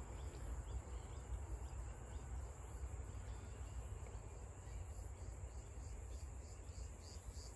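Steady high-pitched chorus of insects, faintly pulsing, over a low rumble.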